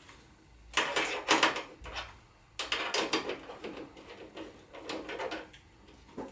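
Metal tools and small hardware clinking and rattling in two spells while bolts are being taken off a motorcycle's luggage rail.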